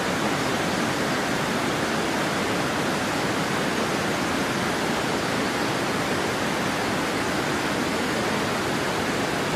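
Steady, even rush of flowing water from a mountain stream, unchanging throughout.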